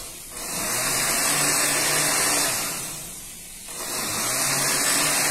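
Countertop blender running, blending walnuts and milk into walnut (nogada) sauce. It runs in two bursts with a short drop-off about three seconds in.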